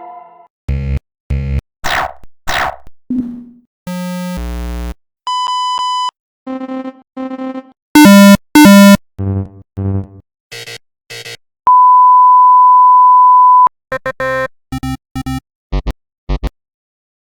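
A run of synthesized computer error sound effects, one after another: paired low buzzes, falling blips, harsh double buzzes, and double beeps. The loudest is a pair of harsh buzzes about eight seconds in. A steady pure beep holds for about two seconds, then a quick string of short beeps ends the run.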